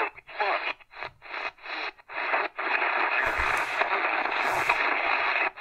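Tecsun PL-398BT portable radio being tuned across the AM broadcast band: short snatches of station audio cut by brief silences as the tuning wheel steps from frequency to frequency, then about three seconds of one station's muffled AM audio.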